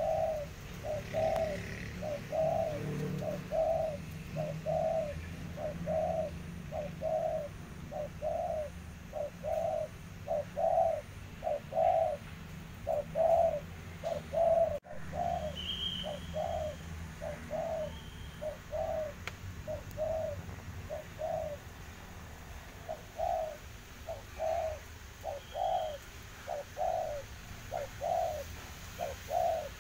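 Spotted dove cooing: a long run of low, hollow coos in a steady rhythm, about one and a half a second, with a short pause about two thirds of the way through. A few brief high chirps from a small bird are heard near the middle and later.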